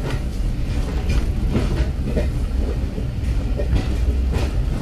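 Passenger train carriage running slowly, a steady low rumble with a few scattered clicks and knocks from the wheels on the track.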